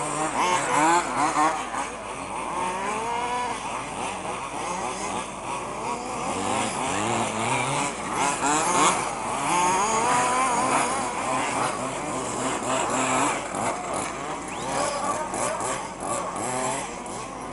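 Small engines of several radio-controlled off-road racing cars buzzing, each rising and falling in pitch as the cars rev and brake around the dirt track.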